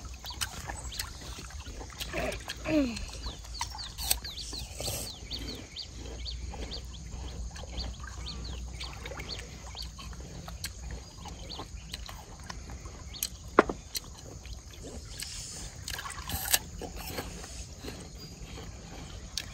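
River water lapping and splashing against a raft, over a steady low rumble of wind on the microphone. There are many small high ticks through the middle and a few sharp clicks, the loudest about two-thirds of the way in.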